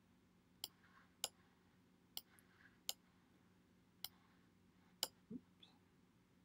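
Computer mouse clicking about seven times at irregular intervals: short, sharp clicks over faint room tone.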